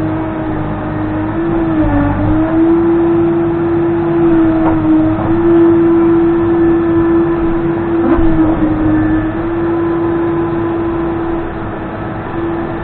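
Case 580N backhoe loader running hard at high revs with a steady high whine. The pitch sags briefly about two seconds in and again around eight seconds in, as the engine takes load.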